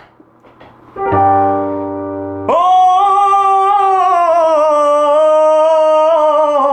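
A short lull, then a steady keyboard chord about a second in. From about two and a half seconds in, a teenage boy's voice holds one long sung note over the keyboard backing, its pitch wavering slightly.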